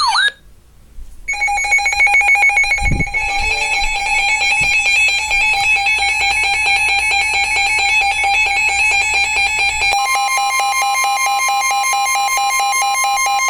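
Emergency Alert System alert tones for a severe thunderstorm warning. After a short gap about a second in, a steady electronic tone starts, and about ten seconds in it changes to two tones sounding together.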